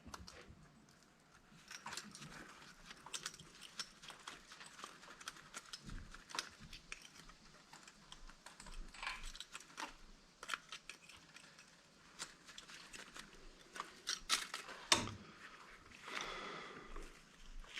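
Light, irregular clicks and clinks of small metal parts and hand tools as an old electric angle grinder is dismantled, with one sharper knock about fifteen seconds in.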